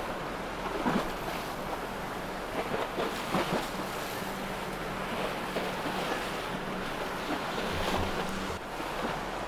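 Water rushing and splashing with wind buffeting the microphone, and a steady engine hum underneath, as a powerboat runs at speed through choppy water.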